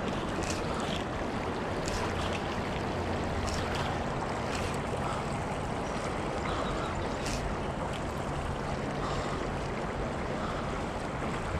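Steady rush of shallow river current swirling and splashing close by, with a few faint light ticks now and then.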